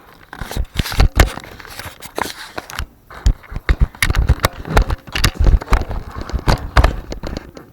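Irregular knocks, clatters and scrapes close to the microphone, as of things being handled and shifted about, heaviest in the second half.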